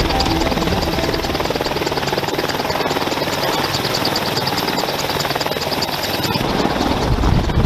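AH-64 Apache helicopter running: a steady high turbine whine over rushing rotor noise with a fast, regular beat. About a second before the end the whine drops away and the sound turns deeper and rougher.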